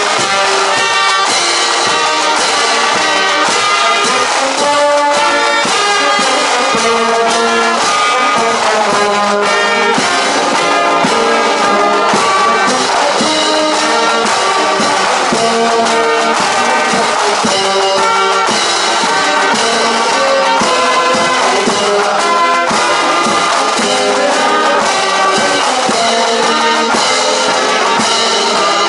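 Brass marching band playing, trombones and trumpets carrying the tune over a steady drum beat.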